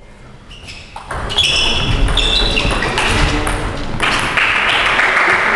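A table tennis rally: the celluloid ball clicking off the bats and the table, with short high squeaks mixed in. From about four seconds in, a small crowd applauds the point.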